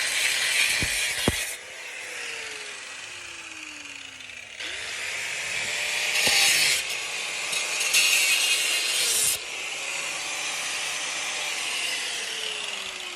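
Angle grinder cutting into a rusted threaded pipe connector: a harsh grinding hiss that starts and stops several times, with the motor's whine falling slowly twice as the disc spins down. Two sharp knocks, about a second in and near the middle.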